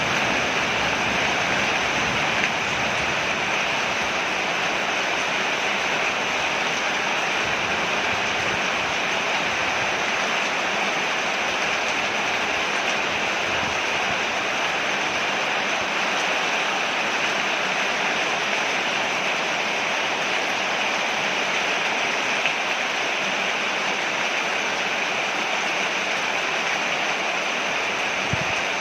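Steady, heavy rain falling on a porch, an even continuous wash of water noise with no change in strength.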